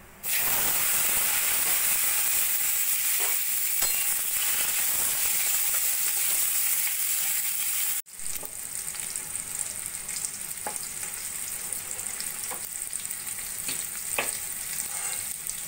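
Boiled, still-moist olives dropped into hot oil in a kadai, frying with a loud steady sizzle, stirred with a metal spatula that clicks and scrapes against the pan a few times. About halfway through the sizzle cuts off abruptly and resumes quieter.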